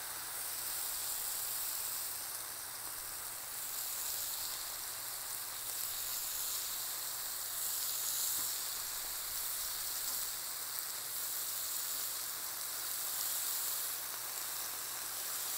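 Raw bacon strips sizzling steadily on a Blackstone flat-top griddle over medium to medium-low heat, with more strips being laid down.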